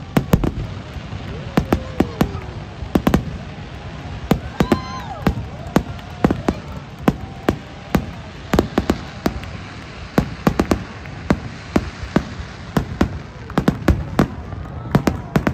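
Fireworks display: aerial shells bursting in a continuous barrage, sharp bangs coming at irregular intervals, often several a second.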